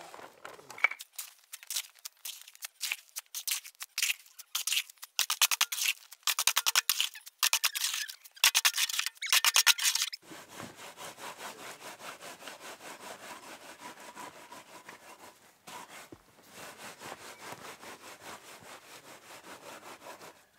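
A metal shovel scraping and chopping through wet concrete in a steel wheelbarrow in quick, irregular strokes. About halfway it changes to a wooden board rubbing back and forth over a fresh wet concrete pad, about two to three even strokes a second, smoothing the surface.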